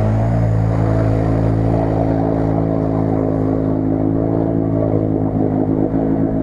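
ATV engine running at steady high revs as the quad pushes through deep marsh water. The engine note holds one pitch and turns uneven near the end.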